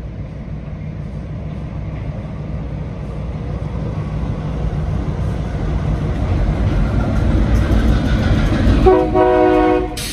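EMD diesel locomotives of a freight train working under power as they approach and roll onto a trestle, the low engine rumble growing louder. About nine seconds in, the lead switcher gives one short horn blast of about a second.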